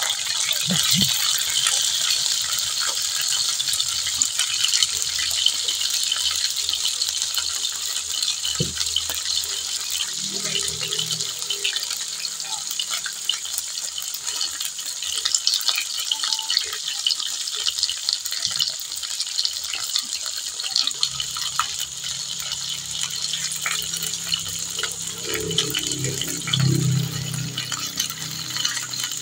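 Cornstarch-coated boneless chicken pieces sizzling and crackling steadily as they shallow-fry in hot oil in a frying pan, with occasional clicks of metal tongs turning them.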